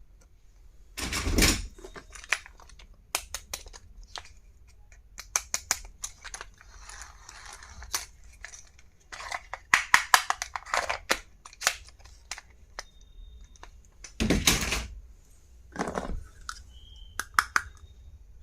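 Small stationery items and their packaging handled by hand: a run of sharp clicks and taps with some rustling, and two louder, longer scuffs, one about a second in and one near 14 seconds.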